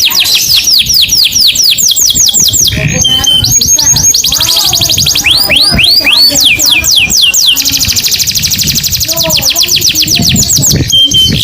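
Domestic canary singing loudly and without a break: fast trills of repeated down-slurred whistled notes, a brief steady whistle, a few slower slurred notes, then another long rapid trill near the end.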